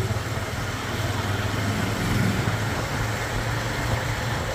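Motorbike engine running steadily under way, a low continuous hum mixed with wind and road noise from riding through street traffic.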